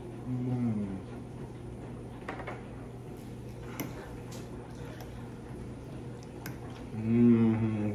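Close-up eating sounds: wet chewing of creamy pasta with a few sharp clicks of metal forks against the glass baking dish. A short voiced "mm" comes about half a second in, and a voice starts near the end.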